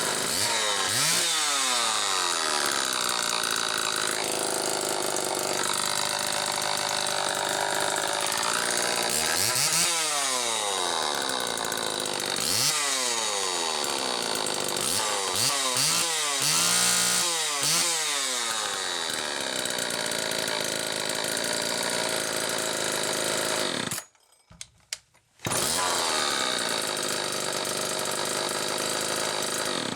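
Homelite XL-2 two-stroke chainsaw running on a test run after repair, revved up and let back down to idle several times. Near the end the sound breaks off for a moment and then resumes.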